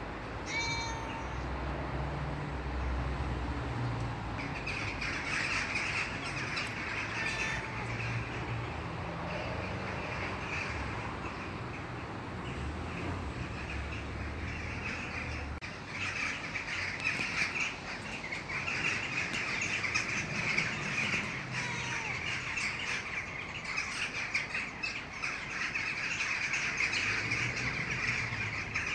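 Garden birds chirping in a dense chorus, with a few separate short calls standing out. A low rumble lies underneath for the first half.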